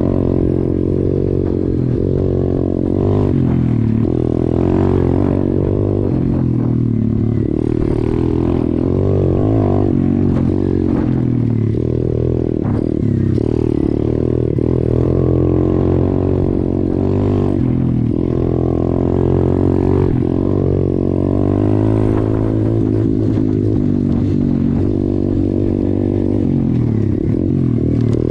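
YCF 125 pit bike's single-cylinder four-stroke engine running under load while ridden on a dirt trail, its pitch rising and falling again and again with the throttle. Short knocks and rattles from the bike over the bumps come through along with it.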